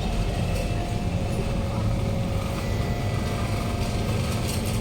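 Inside a Kawasaki Heavy Industries C151 train standing at a platform: a steady low hum from the carriage's onboard equipment and ventilation, with a few faint steady tones over it. There is a short patch of rattling clicks near the end.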